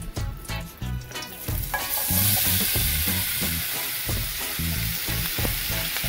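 Chopped onions, scallions, sweet peppers and tomatoes tipped into hot frying oil: the oil starts to sizzle about two seconds in and keeps up a steady sizzle as the vegetables begin to sauté.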